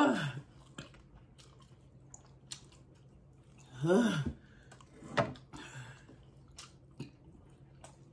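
Chewing and small mouth clicks from people eating spicy meatballs, broken twice by a short moaning vocal sound that rises and falls in pitch, at the start and again about four seconds in, as they react to the heat.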